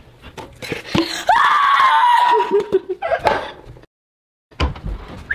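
A young child screaming: a high cry held for about a second, followed by shorter voice sounds. It stops abruptly, and after a brief gap a few knocks follow.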